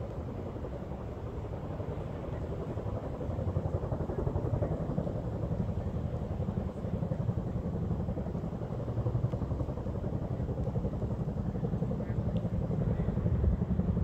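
Boeing Chinook tandem-rotor helicopter flying, its rotors giving a deep, rapid beating drone that grows louder near the end.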